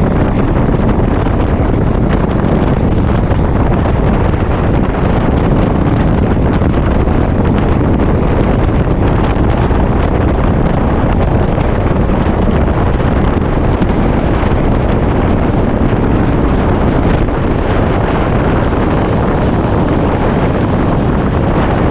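Steady, loud wind buffeting on the microphone of a mountain bike rider's camera while riding, with rumble from the bike on the trail mixed in.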